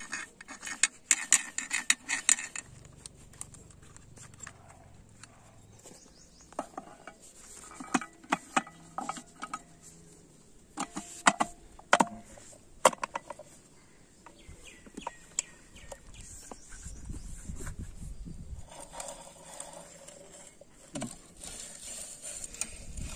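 Hand tools and metal engine parts clinking and clattering as a Hero Honda Passion Pro engine is taken apart by hand: a quick run of clinks at the start, then scattered sharp metallic taps.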